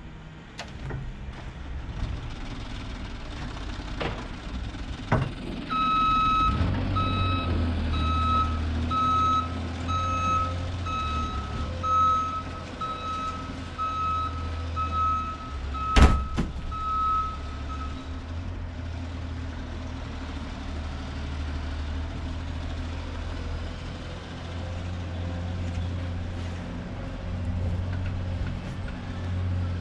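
A vehicle's reversing beeper sounds a steady run of evenly spaced beeps for about twelve seconds, stopping around two thirds of the way through, over the low, steady rumble of its engine. A single sharp knock sounds near the middle.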